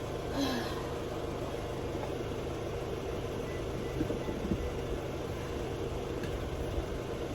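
A car engine idling steadily, with a few faint clicks about four seconds in.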